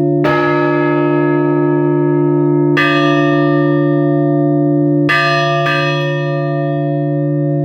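Church bells tolled slowly for a funeral service: single strokes roughly every two and a half seconds, with two strokes close together about five seconds in. Each stroke rings on over a deep, steady hum from the larger bell.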